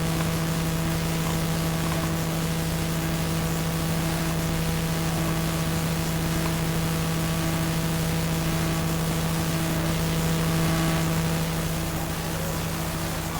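Steady electrical hum with constant hiss, one low tone with fainter higher overtones, unchanging throughout.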